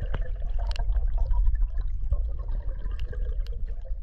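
Stream water heard through a camera held underwater: a muffled low rumble of moving current with scattered clicks and crackles.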